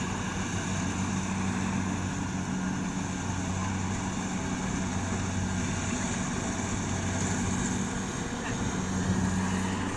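Rice combine harvester's diesel engine running at a steady speed, a constant low drone with no change in pitch.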